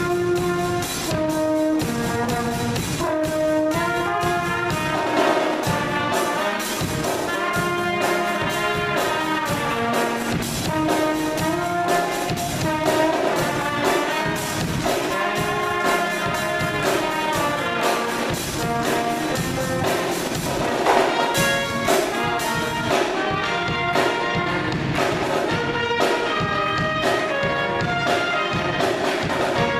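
A small band playing live: trombone and trumpets over a drum kit.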